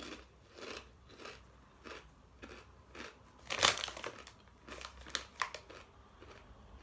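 Chewing and crunching of McCoy's Muchos crisp folded tortilla chips: a run of short crunches, several a second, with the loudest crunch about halfway through.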